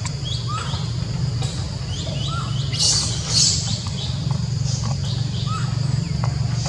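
Birds chirping in short repeated calls, with two louder, sharper high calls about three seconds in, over a steady low hum.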